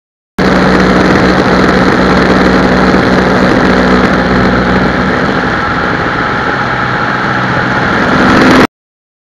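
Light high-wing jump plane in flight: steady drone of its piston engine and propeller mixed with loud wind rush on a camera mounted outside the aircraft. The sound starts and stops abruptly, with a slight swell just before it cuts off near the end.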